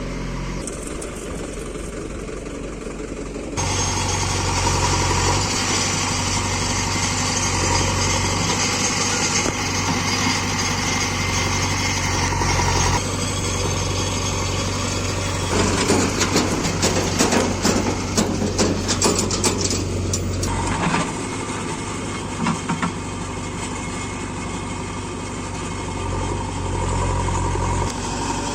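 Diesel engine of a JCB 3DX backhoe loader running, stepping up louder a few seconds in. From about halfway through, there are some five seconds of rapid clattering knocks.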